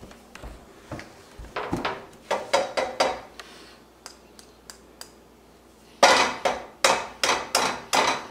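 Sharp knocks of an egg against a frying pan. There is a run of about six lighter knocks, then, about six seconds in, a run of seven louder, evenly spaced knocks, about three a second.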